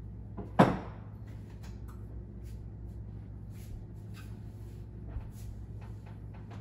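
One loud, sharp clank about half a second in, then faint rustling and small knocks as a cake pan is handled and the oven door is opened to put it in. A steady low hum runs underneath.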